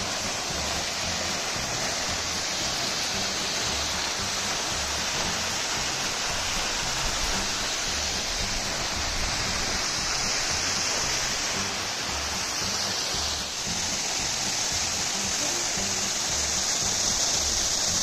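Waterfall rushing steadily. Background music with a repeating low bass line runs underneath it.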